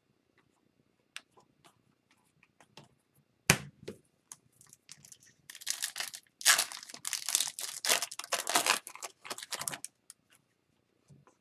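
Hands handling trading cards with a few light clicks and a sharp knock about three and a half seconds in, then the wrapper of a 2021-22 Upper Deck Series 2 hockey card pack being torn open and crinkled for several seconds.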